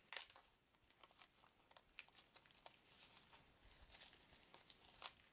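Faint crinkling and crackling of plastic shrink-wrap being picked at and peeled off a stack of board-game cards, in many small quick crackles, loudest just after the start and again near the end.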